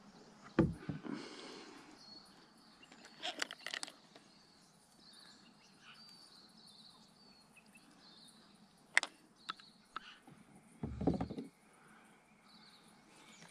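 Quiet river ambience with faint bird chirps, broken by scattered clicks and knocks of fishing tackle being handled in a kayak. A sharp knock comes about half a second in, and a dull thump comes about eleven seconds in.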